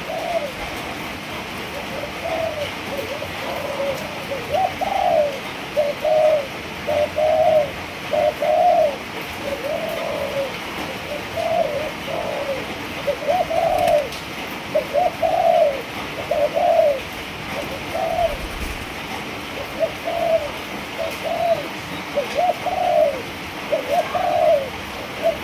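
Three-month-old Malaysian-strain spotted doves cooing: a steady run of short arching coos, one after another and at times overlapping, from several birds.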